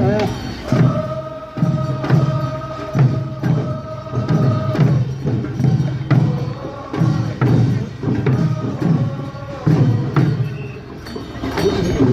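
Korean traditional funeral song sung in a chant style: a lead voice holds a long note over low group voices, with regular sharp wooden knocks keeping the beat.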